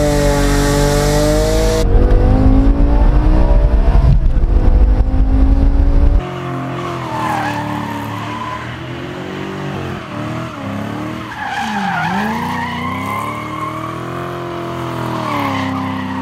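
A car engine runs loud under way, its pitch rising and dipping. About six seconds in it cuts to tires squealing as a car slides in a smoky burnout, its engine revving up and down.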